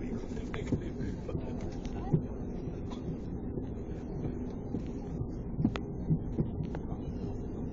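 Cabin noise of an Airbus A330-300 taxiing: a steady low rumble from the idling engines and the landing gear rolling on the taxiway, with a few light thumps.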